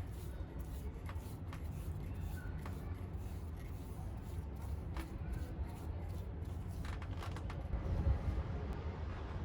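Light rubbing and scattered small clicks of hand work on a wooden axe handle over a steady low rumble, with a brief louder low bump about eight seconds in.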